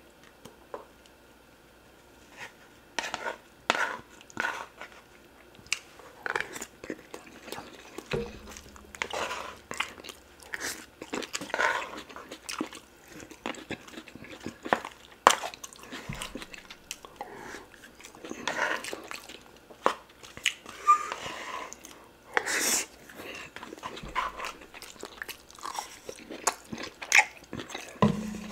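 Close-miked eating of oxtail pepper soup and rice: wet chewing and mouth smacking with many short sharp clicks. It starts about two and a half seconds in and runs on densely.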